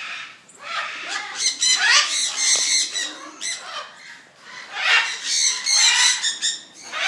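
Moluccan cockatoo making raspy calls in two bouts, one starting about a second in and another about five seconds in.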